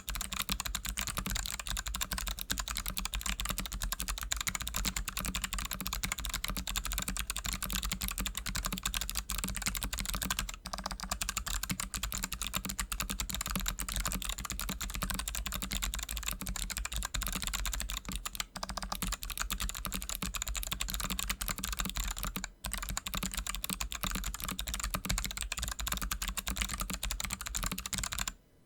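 Fast, continuous typing on a mechanical keyboard with Kailh Box Pink clicky switches and DSA-profile keycaps: a dense run of sharp clicks with only a few brief pauses, stopping just before the end.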